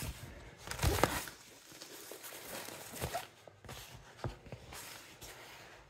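A large diamond painting canvas and its plastic cover film being lifted and turned over by hand: soft rustling and crinkling, with the loudest crinkle about a second in.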